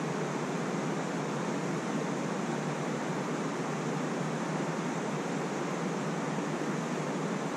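Steady rushing background noise, even and unchanging, with no distinct events.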